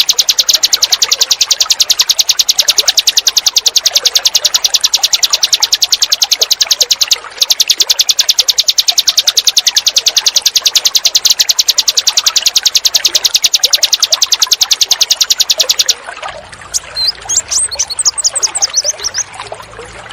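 Recorded small songbird's rapid 'tembakan' call: a fast, unbroken run of sharp high notes, with a brief break about seven seconds in. About sixteen seconds in it cuts abruptly to separate bird chirps and sweeping whistles over the sound of running water.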